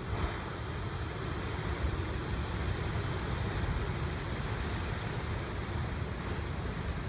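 Ocean surf breaking and washing over a rocky shoreline, a steady rushing noise, with wind noise on the microphone.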